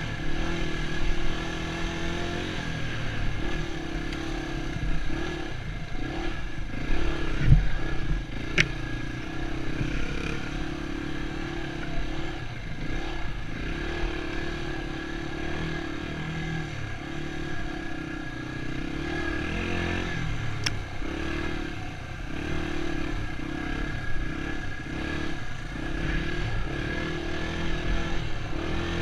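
Dirt bike engine running while being ridden. The engine note repeatedly dips and rises again as the throttle is eased and opened, with a thump about seven and a half seconds in.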